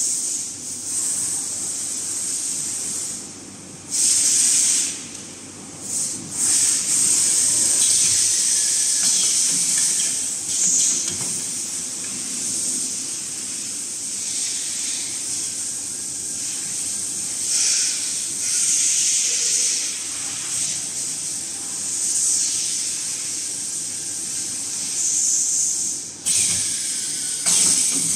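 Napkin paper packing machine running with a loud, high hiss over a low hum; the hiss drops out briefly a few times.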